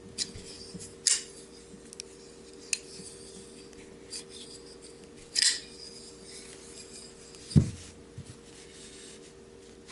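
Small metal clicks and rubbing as a freshly reassembled and oiled Kizer T1 folding knife is handled, about half a dozen scattered sharp clicks, with one duller thump about two-thirds of the way in that is the loudest sound.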